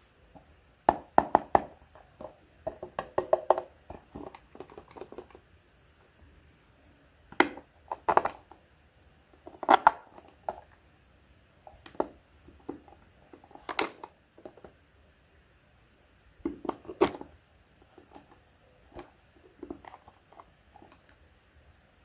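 Hard plastic toys being handled, mainly a small plastic toy washing machine picked up and turned over in the hands: irregular clusters of clicks, knocks and short rattles every few seconds.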